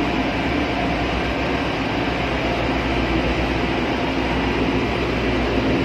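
Steady, loud machinery din of a ship's engine room: a constant roar with a low hum underneath, unchanging throughout.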